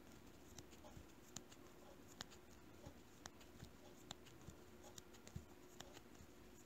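Faint, irregular light ticks of a crochet hook working yarn into a chain of stitches, about two a second, over near silence.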